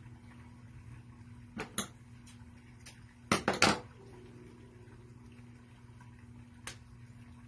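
A few sharp clicks and light knocks from hands handling craft materials on a wooden table while a fabric bow is tied. The loudest cluster comes about halfway through, over a steady low electrical hum.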